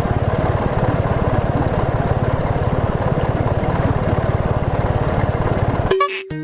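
A small engine or motor running steadily with a rapid, even pulse, cutting off abruptly near the end.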